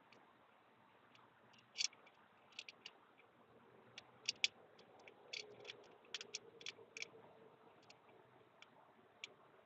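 Faint hand-tool work on metal fittings: a dozen or so sharp clicks and taps at uneven spacing, bunched in the middle few seconds.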